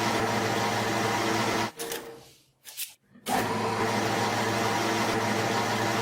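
Electric power-tool motor running at a steady speed with an even hum and hiss. It cuts out abruptly just under two seconds in and comes back at the same pitch about a second and a half later.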